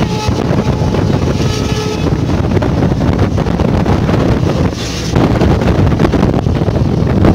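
Passenger train running at speed: steady rumble and rattle of the wheels on the track, with wind rushing over the microphone from the open coach doorway.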